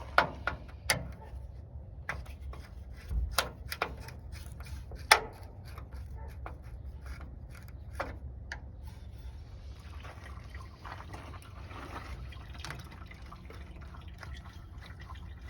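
Old coolant draining out of the opened radiator drain of a 1971 Plymouth Fury in a steady trickle. Several sharp knocks come in the first five seconds.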